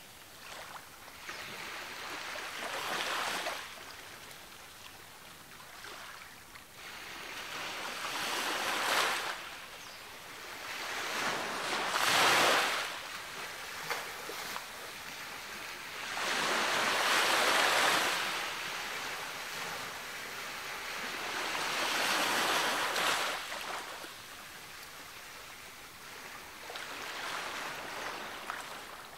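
Ocean surf breaking and washing up a beach, swelling and easing off in about six surges, one every four to five seconds.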